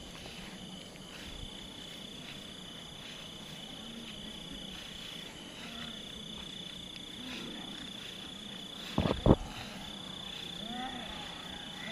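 Night insects trilling: a steady high-pitched buzz that breaks off briefly twice. About nine seconds in, two dull thumps close together stand out as the loudest sound.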